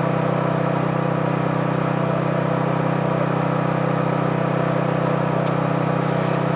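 A steady, unchanging machine hum made of several fixed tones, typical of the running machinery of an ROV operating setup picked up on the recording.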